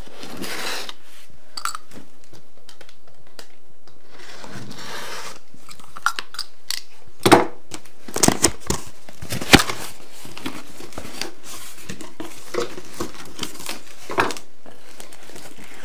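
Cardboard shipping box being opened by hand: packing tape tearing and cardboard flaps rustling and scraping, with a cluster of sharp cardboard knocks about halfway through.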